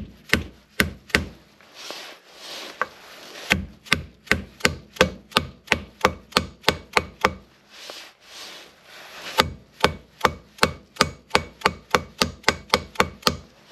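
Hammer tapping a seal driver to drive a front wheel seal into the hub of a Triumph Daytona 955i wheel, slowly and keeping it level. A few taps, then two long runs of even taps at about three a second, with short pauses between.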